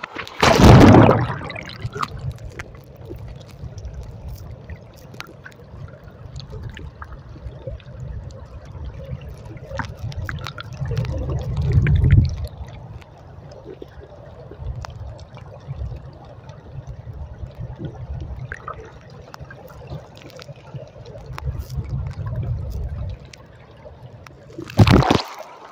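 River current heard underwater through a phone's waterproof case: a continuous low rumbling and gurgling of fast, deep water with faint scattered clicks. It swells into louder surges about a second in, around halfway through, and just before the end.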